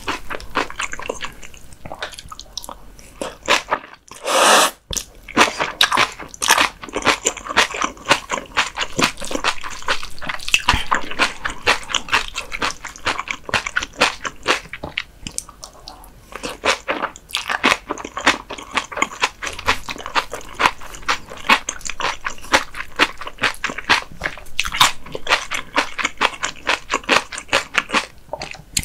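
Close-miked chewing of raw whitebait sashimi with a crunchy seasoned vegetable salad: continuous wet crunching and smacking, with a brief loud hiss about four seconds in.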